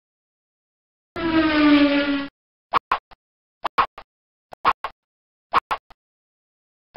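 Presentation-software animation sound effects. About a second in, a pitched tone with several overtones sounds for about a second, then stops abruptly. It is followed by short clicks in groups of two or three, about one group a second, as text animates onto the slide.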